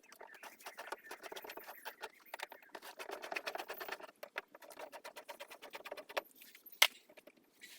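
Rapid, irregular clicking and scraping of a ratchet with an extension undoing 8mm bolts from the car's rear quarter panel, with one sharp louder click about seven seconds in.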